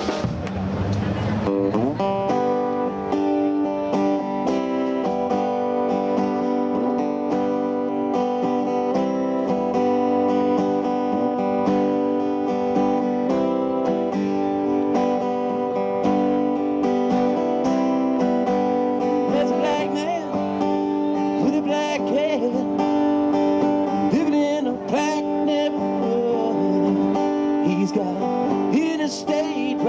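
Live band playing: strummed acoustic guitar and electric guitar over a drum kit, with a man singing in the second half.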